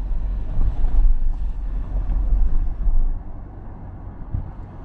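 Low, buffeting rumble of wind on the microphone and road noise from a Honda Freed+ car on the move. It drops off sharply about three seconds in.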